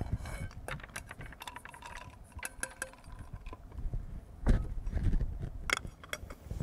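Hazelnuts and walnuts rattling into the stainless steel cup of an electric coffee grinder: a scatter of small clicks and clinks, with a few louder metal knocks in the second half as the grinder is handled.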